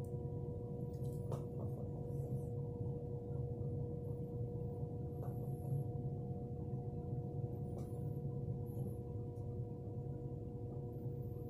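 A steady low hum with a few constant higher tones held over it and a few faint ticks, the even background hum of a room or appliance.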